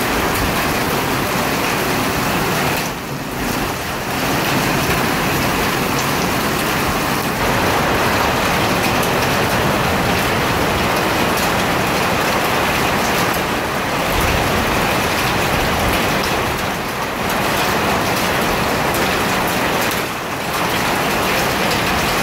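Hail and rain hitting a carport roof in a severe thunderstorm: a dense, steady hiss of impacts that eases briefly a few times.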